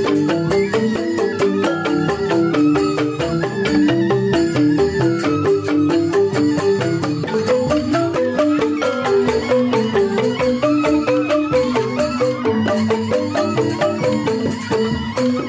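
Balinese joged bumbung gamelan: bamboo xylophones (grantang) struck in fast interlocking patterns, with a bamboo suling flute melody above.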